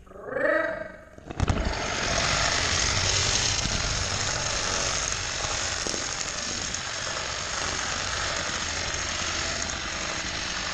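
A short pitched sound, then a sharp clunk about a second and a half in as the start gate drops. After that comes a steady rattling rumble, heard from on board, as a GoPro-carrying gravity car rolls down the plastic Hot Wheels drag track.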